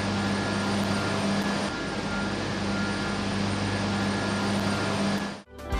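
Steady roar of running power-plant turbine hall machinery, with a steady low hum and a few faint whining tones over it. It cuts off abruptly near the end.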